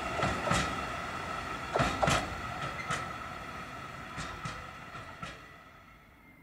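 Freight train of Uacns cement tank wagons rolling away, their wheels clicking irregularly over the rails above a steady high ringing tone. The sound fades steadily as the train recedes, until little is left near the end.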